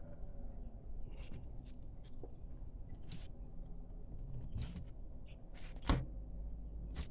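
Scattered rustles, scrapes and light clicks of hands working a spiny porcupinefish on a cutting board with a cloth and a blade, with one sharper knock about six seconds in.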